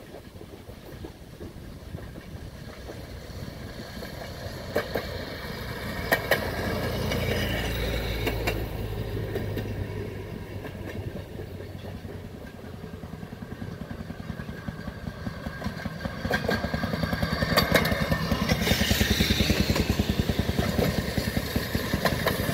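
Railway motorcars (track speeders) approaching along the rails, their small engines running with a rapid, even putter that grows louder as the lead car draws close. Sharp clicks as the wheels cross rail joints come through several times.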